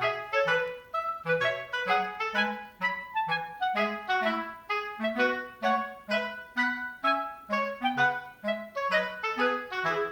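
Background music: a bouncy tune of short, quickly fading notes over a low bass line.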